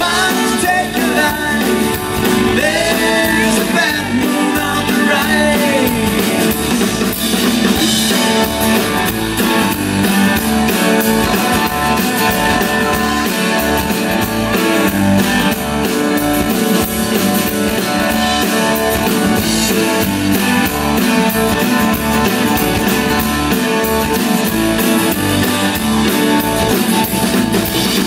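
Live band playing a song: singing over acoustic and electric guitars and drums.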